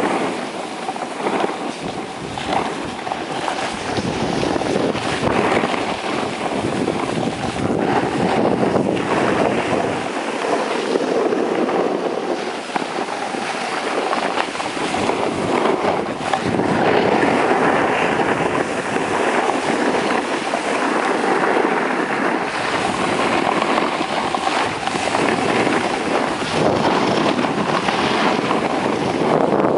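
Skis running and scraping over groomed snow during a downhill run, with wind rushing over the microphone.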